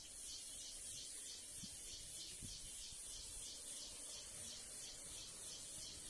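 A high, hissing insect buzz pulsing evenly about four times a second; it starts and stops abruptly.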